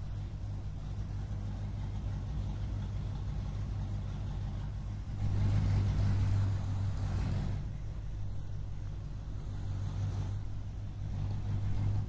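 Toy RC car's built-in engine sound effect running as a steady low idle hum. It swells louder like a rev from about five seconds in for two to three seconds, then settles back to idle.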